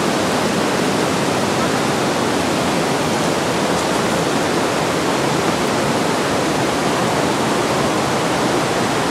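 Mountain river in a gorge, rushing steadily with a loud, even roar of water.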